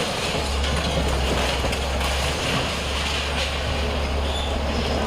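Heavy diesel demolition machine running steadily, a deep, even engine note with a noisy wash of mechanical sound above it.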